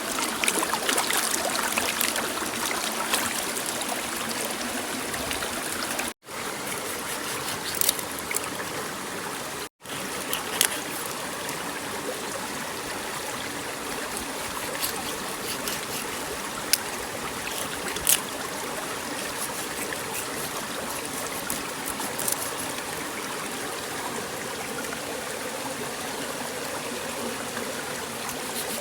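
Water running and trickling steadily, with a few small splashes and clicks. The sound cuts out twice, briefly, about six and ten seconds in.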